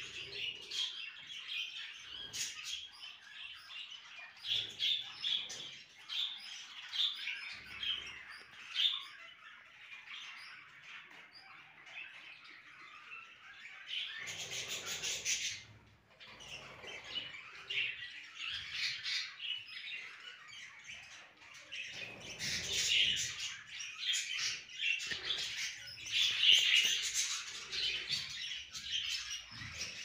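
Budgerigars chattering and chirping continuously, a dense warbling twitter. A brief rustle of handling is heard about halfway through.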